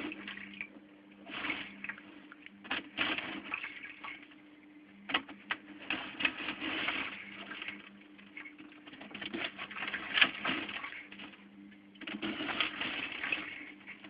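Water in an aquarium splashing and sloshing in irregular bursts as a hand works in the tank, with scattered sharp clicks and knocks, over a steady low hum.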